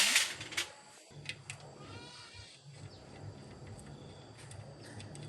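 A loud metal clank of machine parts being handled, ringing briefly, followed by a few lighter clinks. About two seconds in comes a short wavering high cry, over a low steady hum.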